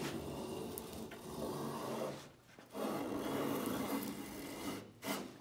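Small finger plane shaving the edge of a cedar canoe strip, cutting a light bevel. Two strokes of about two seconds each, with a short break between them.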